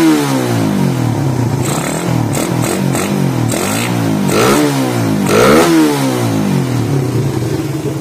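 Suzuki Satria FU's single-cylinder four-stroke engine, running on a PE28 carburettor and BRT CDI with its stock exhaust, being revved with quick throttle blips. The revs rise and fall several times, the two biggest blips about four and a half and five and a half seconds in, then settle to a steady idle near the end.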